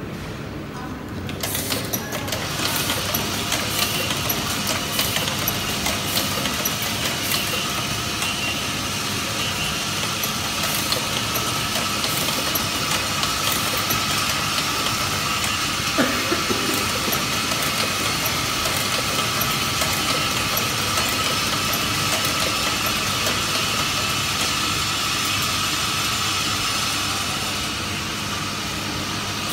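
Automatic transformer magnetic-core assembly machine running: a steady mechanical noise with a faint high whine and scattered light clicks, growing louder about a second and a half in.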